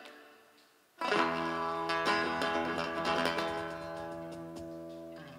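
Live band music dies away to near silence, then about a second in a single strummed guitar chord rings out and is left to fade slowly over the next few seconds.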